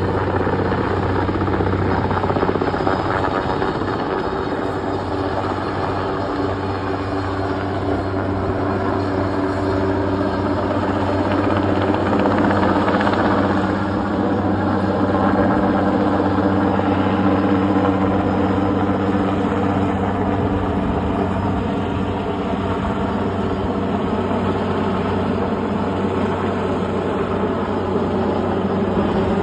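Sikorsky helicopter hovering with a load slung on a long line, its rotor and engine giving a loud, steady drone.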